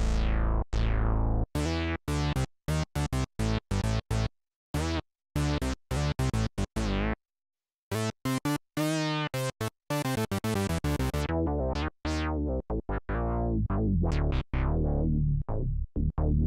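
Clavia Nord Wave 2 synthesizer played dry, with no external effects, on a plucky keyboard patch. Short, detached notes and chords each start bright and quickly darken, with sharp silences between them. There is a brief pause about halfway through, a quick run of notes a little later, then longer ringing notes near the end.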